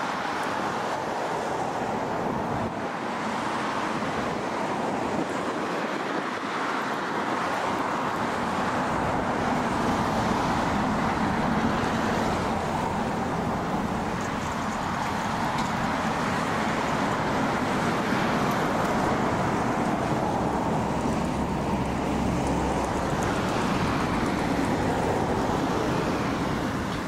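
Jet aircraft engine noise: a steady rushing sound that grows deeper and a little louder after the first several seconds, then swells and eases slowly.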